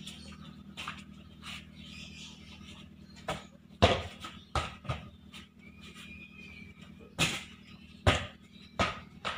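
A ball thrown at a hanging basket, landing and bouncing on paving blocks: a handful of short, sharp knocks, the loudest about four seconds in, with more between about seven and nine seconds in. A steady low hum lies underneath.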